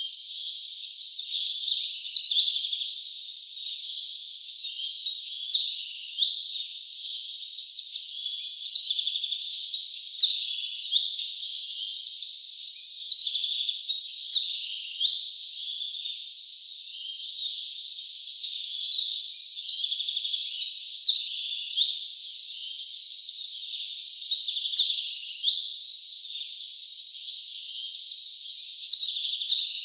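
Rainforest crickets and birds: the crickets keep up a steady, high, pulsing trill, and short bird calls slide down in pitch every second or two.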